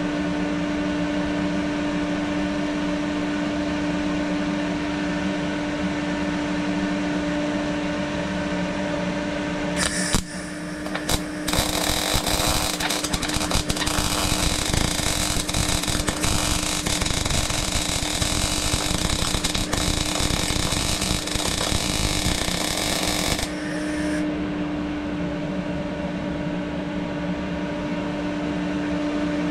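MIG welding arc from a Parweld XTM 211Di welder. It strikes briefly about ten seconds in, then crackles steadily for about twelve seconds while a bead is laid, and stops. A steady hum runs underneath.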